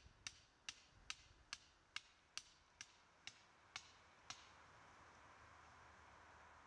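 A regular ticking, a little over two sharp ticks a second, slowing slightly and fading out about four seconds in, leaving only a faint hiss.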